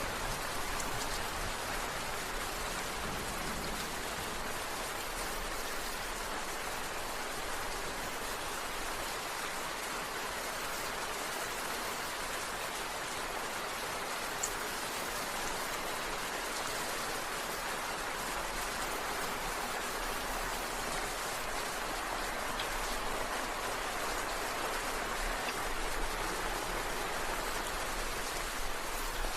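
Steady rain falling, an even hiss with a few faint individual drop ticks.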